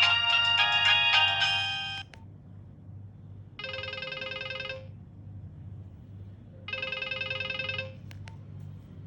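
Nokia 1650 ringtones: a many-note melody ends about two seconds in with a click. Then come two identical buzzing, trilling tones, each about a second long and three seconds apart, and a couple of quick clicks near the end.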